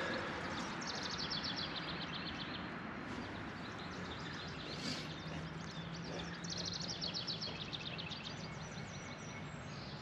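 A songbird sings a rapid high trill twice, about a second in and again around six and a half seconds in, over a steady background hiss of outdoor ambience.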